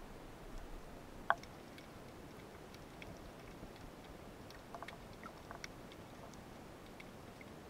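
Faint underwater ambience picked up by a submerged camera: a low steady hiss with scattered small clicks and ticks, a sharper click about a second in and a cluster of clicks around the middle.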